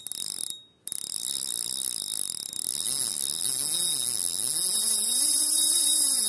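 Intro sound effect under a title logo: a loud steady hiss that cuts out briefly just under a second in, then returns, joined about halfway through by a low tone that rises and falls.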